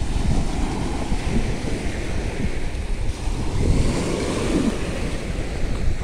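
Sea surf breaking and washing up on the shore, with wind buffeting the microphone as a gusty low rumble.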